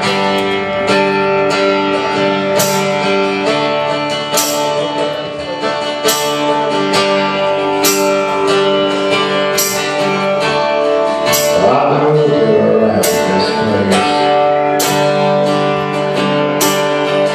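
Live band playing amplified music: electric guitars and bass holding chords over a drum kit, with cymbal hits about once a second. A voice comes in singing about two-thirds of the way through.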